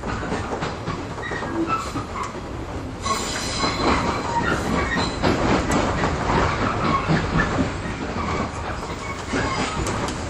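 JR 415-series electric train running, heard on board: a steady rumble of wheels on rail with rail-joint clicks and high wheel squeal, strongest a few seconds in.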